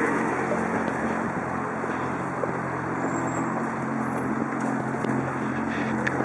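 City street traffic: a steady road-noise hiss with the low, even hum of vehicle engines running nearby.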